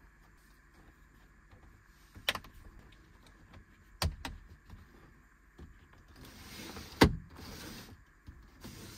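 A Remis pleated RV window blind-and-screen combo being slid up and down in its frame: a few sharp plastic clicks and knocks, the loudest about seven seconds in, with a soft sliding rasp from about six to eight seconds as the blind runs in its tracks.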